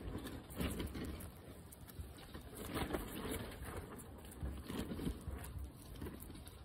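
Guinea pig chewing a slice of tomato close to the microphone: an uneven run of small bites and munching.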